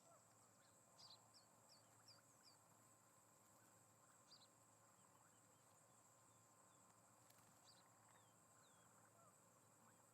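Faint, steady high insect drone with a bird's short high chirps: about five in quick succession about a second in, then single chirps and a few soft sliding notes later.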